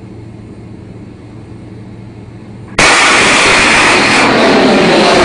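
A low steady hum, then about three seconds in the sudden loud blast of an underwater mine being detonated, followed by a sustained rush of loud noise.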